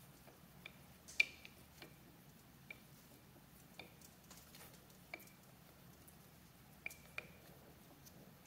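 Faint, irregular light metallic clicks and taps as hands work the cast-iron clamp parts of a Monarch 10EE lathe tailstock, some ringing briefly. The loudest comes about a second in.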